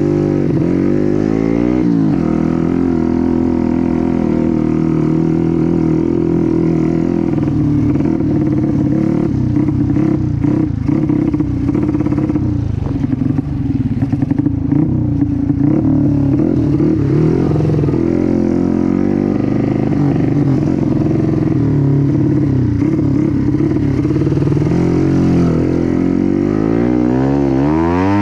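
Honda Win trail motorcycle fitted with a Yamaha Jupiter four-stroke engine, running as it is ridden off-road, its pitch rising and falling with the throttle. A run of clattering knocks comes about halfway through, and the engine revs up and back down near the end.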